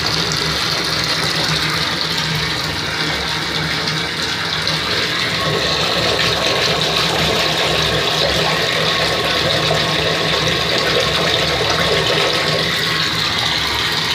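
Bathtub tap running steadily, its stream pouring into a tub of water.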